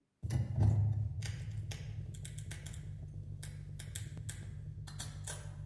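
Experimental new-music soundtrack: a steady low hum that starts abruptly, its loudest swell about half a second to a second in, overlaid with irregular dry clicks and ticks.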